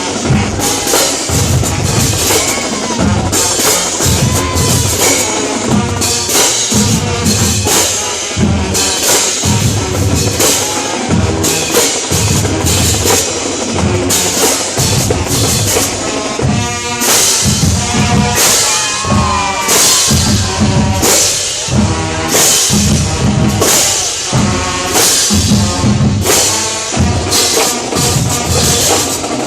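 Marching drumline playing: snare drums and bass drums beating out a loud, dense rhythm with heavy, regularly repeated low hits.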